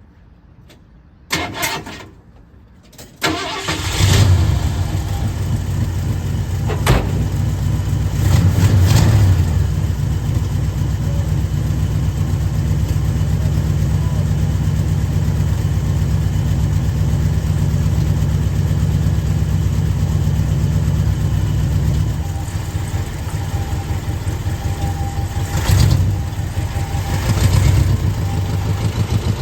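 1973 Ford F100's engine starting about four seconds in and then running steadily, with a few brief revs. The owner suspects it is misfiring for want of new plug wires.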